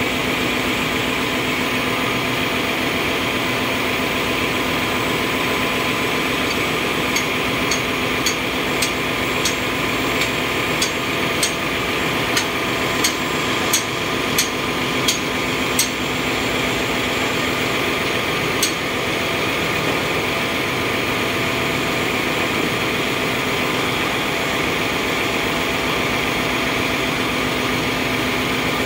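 A hand hammer beating on a spanner at the bowl of a ship's centrifugal oil purifier during reassembly: about fifteen sharp metallic strikes, roughly one to two a second, with a last single blow a few seconds later. Under it runs the steady drone of the engine-room machinery.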